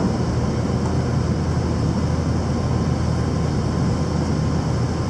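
A train running, with a steady low rumble and an even noise that holds level throughout.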